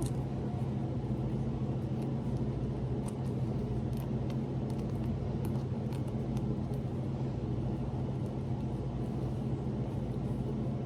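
A steady low hum with a few faint small clicks and rustles as a plastic LOL Surprise doll is worked into its dress.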